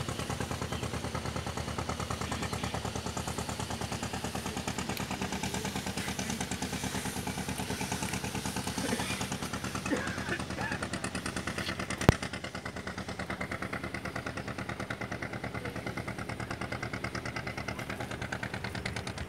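Boat's inboard engine running with a fast, even thumping. A single sharp click about twelve seconds in stands out above it.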